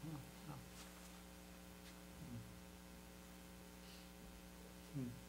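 Near silence with a steady electrical mains hum on the recording, and a brief faint voice sound near the end.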